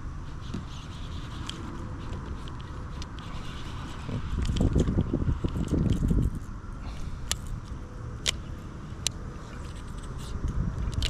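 Wind rumbling on an outdoor microphone, stronger for a couple of seconds about four seconds in, with a faint steady hiss above it and a few sharp clicks near the end.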